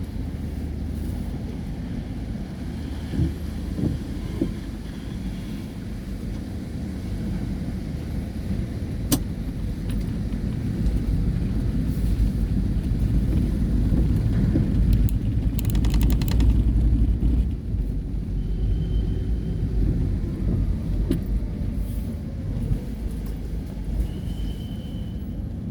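Steady low rumble of a car's engine and motion, swelling a little mid-way, with a sharp click about nine seconds in and two brief high tones near the end.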